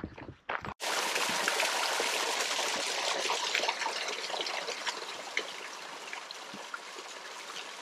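Small mountain waterfall trickling and splashing over a rock ledge into a shallow pool: a steady rush of water that cuts in abruptly about a second in.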